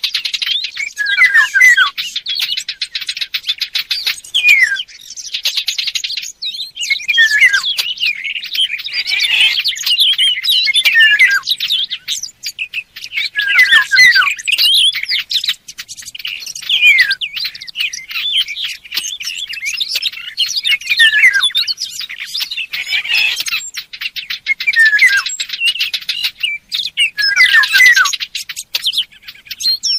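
Bird-call hunting lure mixing Eurasian golden oriole calls with the song of fig birds (warblers): continuous fast chirping and twittering laced with short, falling whistled notes, in phrases separated by brief pauses.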